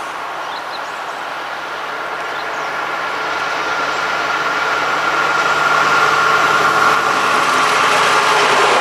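Electric freight locomotive hauling a train of tank wagons, approaching and growing steadily louder, with a steady high whine over a rushing noise.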